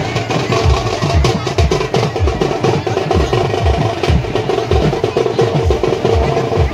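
Drums beating a steady rhythm of about two deep beats a second, over the din of a large crowd.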